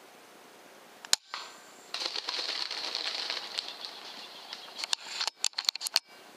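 .22 air rifle shot about a second in, a single sharp crack. A rustling, thrashing noise in dry leaves follows for a few seconds, then a quick run of sharp clicks near the end.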